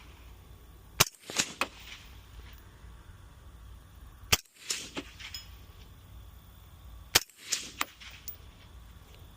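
Three suppressed rifle shots through a SilencerCo Velos LBP suppressor, about three seconds apart, each followed by a couple of fainter echoing cracks.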